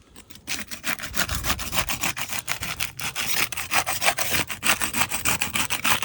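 Putty knife scraping under asphalt shingles in rapid repeated strokes, breaking the adhesive seal strips to unseal the shingles. It starts about half a second in.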